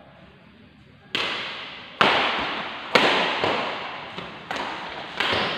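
Badminton rally: rackets smacking the shuttlecock back and forth, a sharp crack roughly every second, starting about a second in, each hit ringing on in the hall's echo.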